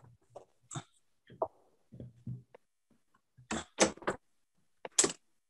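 A few short clicks, knocks and rustles, handling noise from a phone filming at a window and its curtain, bunched up near the end.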